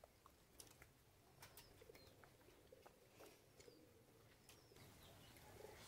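Near silence: faint clicks and smacks of people eating rice by hand from steel plates, with soft wavering cooing in the background.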